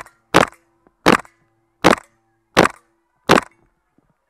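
GHK G5 gas blowback airsoft rifle firing single shots in a steady series, six sharp reports about one every 0.7 seconds.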